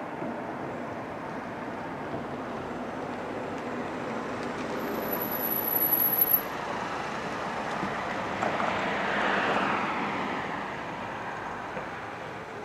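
Steady rumble of distant engines that swells and fades again about eight to ten seconds in, with a thin high whine for a couple of seconds near the middle.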